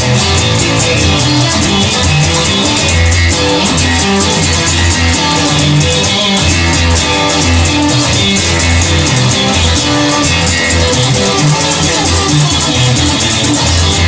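Instrumental rock music: electric guitar over bass and drums, with a steady beat.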